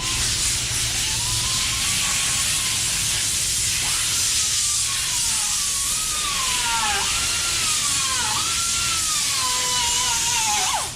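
Compressed air hissing steadily from an air tool used to clean out tight areas of a car body before primer. A thin whistle wavers up and down in pitch through it.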